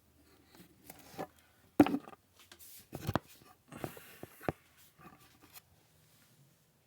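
A series of knocks and clatters with small scrapes, from kitchen cookware or utensils being handled; the loudest knock comes about two seconds in, with more around the middle.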